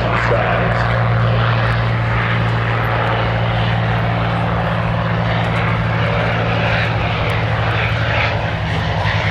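WWII piston-engined fighter plane's engine running at a steady pitch: a deep, even propeller drone.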